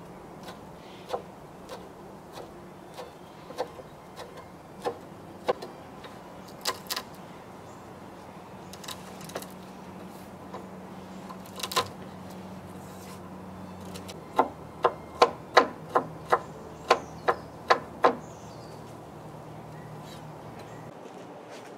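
Chef's knife chopping green onion and garlic on a wooden cutting board. There are scattered knocks of the blade on the board, then, a little past the middle, a quick run of about ten chops at roughly three a second.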